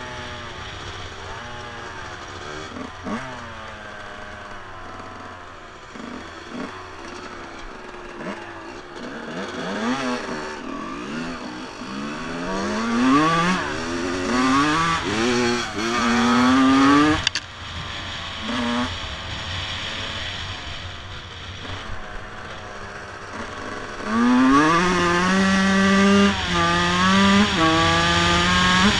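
Two-stroke motocross bike engines running on the move. The engine pitch climbs and falls back again and again as the bikes accelerate and shift up through the gears. It is loudest in the last few seconds, where several quick upshifts follow one another.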